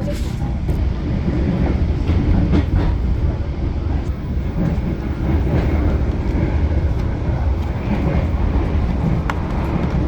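Train running on the rails: a steady low rumble with a few faint clicks through it.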